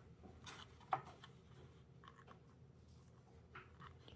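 Scattered faint clicks and taps of small plastic parts being handled: the wing's servo lead connectors and Y-harness. The sharpest click comes about a second in, over near-silent room tone.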